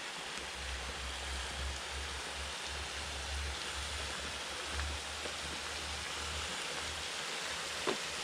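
Steady rush of river water. A low rumble comes and goes beneath it and stops about six and a half seconds in, and there is a single sharp tap near the end.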